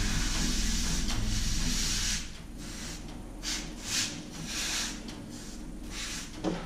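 Hiss of a handheld gas or air jet aimed at a freshly poured silicone mould layer. It runs steadily for about two seconds, then comes in several short spurts, over a low steady hum.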